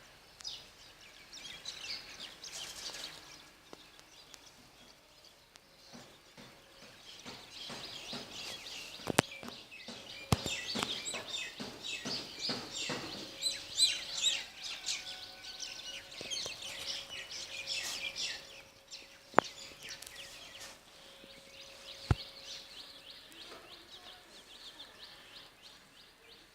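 Many small birds chirping and twittering together in a dawn chorus, busiest through the middle, with a few sharp clicks standing out and a faint steady hum underneath.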